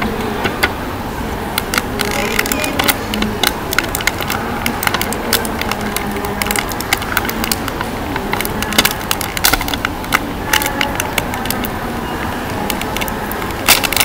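Thin clear plastic bag crinkling and crackling in the fingers as a small diecast toy car is worked out of it, in irregular sharp crackles over a steady background hiss.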